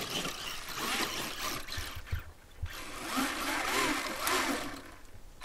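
Formula offroad buggy's engine revving, its pitch rising and falling several times in the second half, over a noisy rush.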